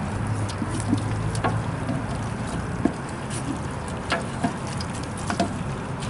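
Long wooden spoon stirring browned ground beef and dry seasoning in a speckled enamel stockpot, with scattered sharp knocks and scrapes of the spoon against the pot over a steady low rumble.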